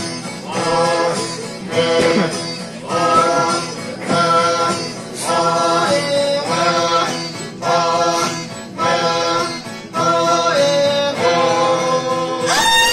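A group of voices singing a song to acoustic guitar accompaniment, in repeated phrases of about a second each.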